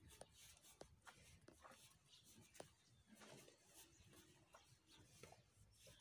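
Near silence, with faint scattered clicks and rustling.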